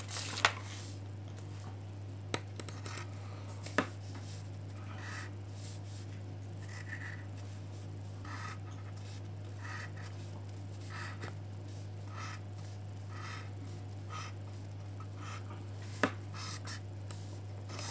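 Pencil on paper, scratching out short strokes and dots, with a few sharp taps against the table, over a steady low hum.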